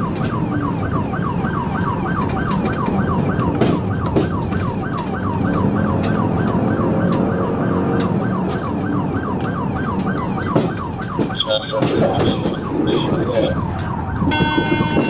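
Police car siren on yelp, sweeping up and down about four times a second over steady vehicle and road noise. It stops about ten seconds in, with a sharp knock, and high electronic beeping follows near the end.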